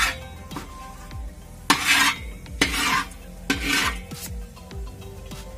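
Steel ladle stirring and scraping bay leaves and whole spices frying in hot oil in a large metal pot: several rasping strokes, the three loudest in the middle, with light clinks of metal on metal and a faint sizzle.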